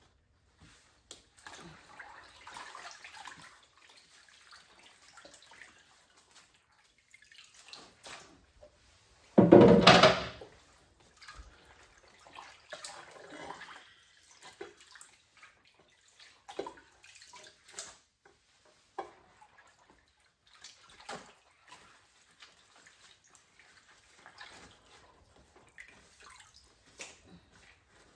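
Water splashing and dripping in a basin as fish are rinsed and handled, with scattered small splashes and knocks and one loud splash lasting about a second, roughly ten seconds in.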